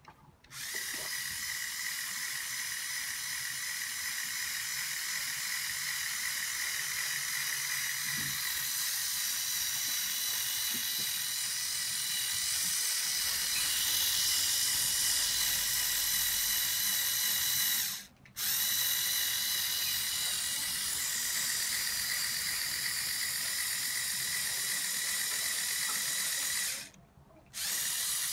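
Lego Technic Volvo 42030 wheel loader's electric motors and plastic gear train whining steadily as they run, cutting out briefly about two-thirds of the way through and again near the end.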